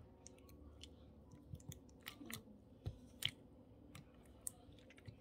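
Faint, irregular clicks and crackles of small things being handled by hand, the sharpest two about three seconds in.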